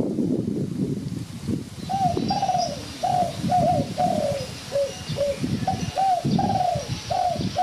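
A bird calling, a run of about a dozen short, down-slurred notes from about two seconds in, over a low, uneven rustling rumble.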